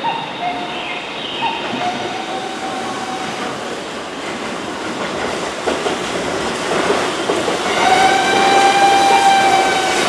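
Keihan 2200-series electric commuter train running slowly round a curve through trackwork, its wheels clattering over rail joints and points. The wheels squeal on the curve in a high, steady tone, loudest near the end.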